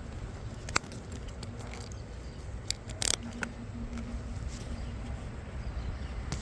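A motorcycle engine idling: a steady low rumble with scattered sharp clicks and ticks over it.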